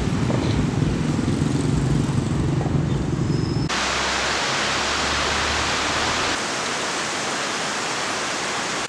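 Low rumble of street traffic for the first few seconds, then a sudden cut to heavy rain pouring down, a dense, steady hiss on foliage and paving.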